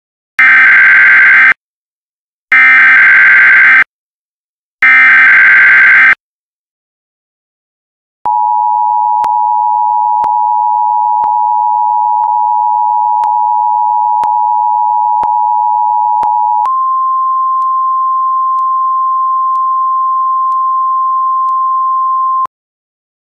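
Emergency Alert System alert: three loud, one-second bursts of SAME header data in the first six seconds, then, after a short pause, the steady two-tone attention signal for about eight seconds, giving way to a single slightly higher steady tone for about six seconds that cuts off sharply.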